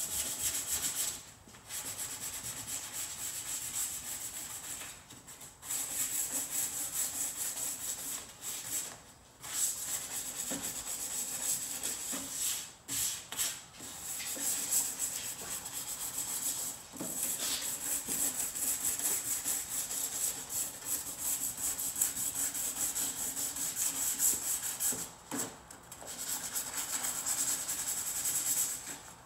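Hand sanding with 220-grit sandpaper on a foam sanding block, scuffing the perimeter of the tailgate's window frame to key it for pinch weld primer. It is a steady, rapid scratchy rubbing, with short pauses every few seconds.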